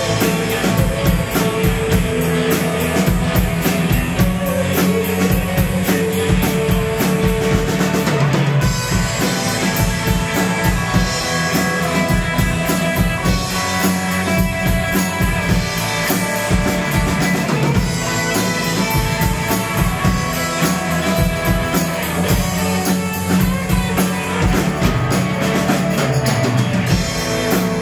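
Live rock band playing loudly and without a break: electric guitars, bass guitar and drum kit.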